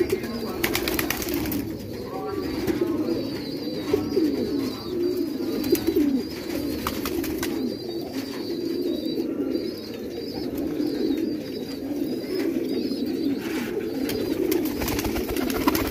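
A flock of Rangdar and Bhatia fancy pigeons cooing continuously, many voices overlapping, with a few brief clatters.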